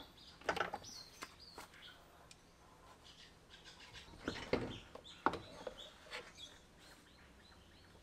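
A few sharp knocks and clicks as the scooter's exhaust and rear wheel are handled and lifted off, with birds chirping in the background.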